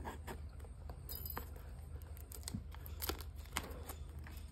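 Clear plastic wrap being peeled off a small cardboard product box and crinkled in the fingers: faint, scattered crackles and rustles.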